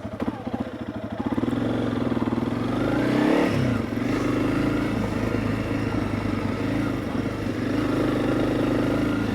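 Honda CRF300 Rally's single-cylinder four-stroke engine running as the bike rides along, its revs dipping and picking up again about three and a half seconds in.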